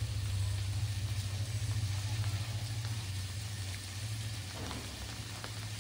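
Onion-tomato masala sizzling in oil in a handi on the stove, over a steady low hum.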